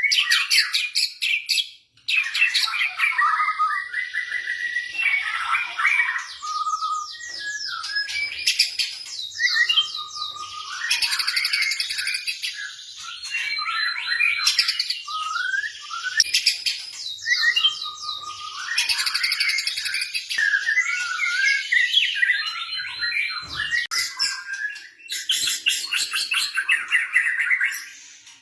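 White-rumped shama (murai batu) singing a long, varied song of loud whistled phrases and very fast trills, with a short break about two seconds in.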